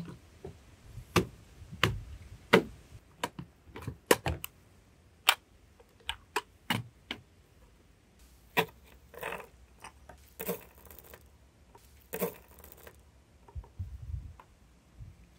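Irregular sharp metallic clicks and clacks, with a few short scrapes, from handling and taking apart the steel pan (drum) magazine of an American 180 .22 submachine gun on a wooden table.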